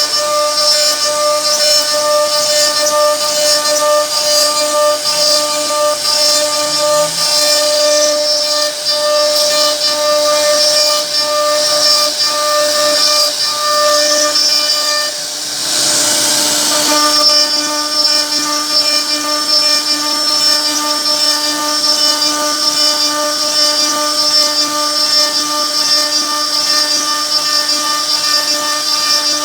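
CNC router spindle running with a steady high whine and hiss as the bit carves into a wooden board. About halfway through the whine drops out briefly under a short rushing noise, then resumes.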